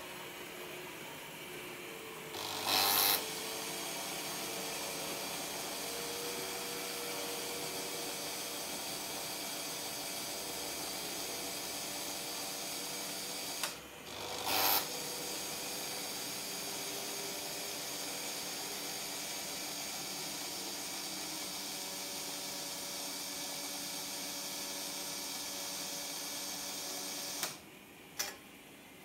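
Märklin 7027 model-railway turntable's electric drive running with a steady mechanical whir as the bridge turns. It starts with a loud buzz, stops briefly and restarts with another buzz about halfway, then cuts out near the end with a click as the bridge comes to rest at a track.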